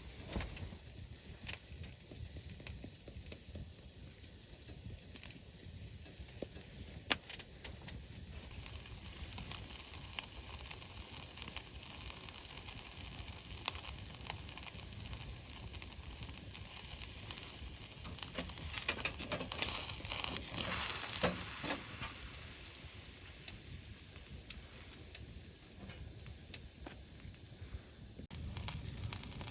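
Food sizzling in a pan, with scattered small clicks; the sizzle swells for a couple of seconds about twenty seconds in.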